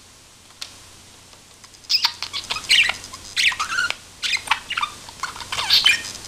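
Pet budgerigar chattering: a quick run of short chirps and warbling pitch sweeps that starts about two seconds in and carries on.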